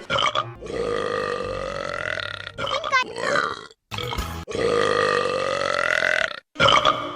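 Stitch, the cartoon alien, burping: two long drawn-out burps of about two seconds each, with a shorter sound of quick pitch glides between them. Each stops abruptly.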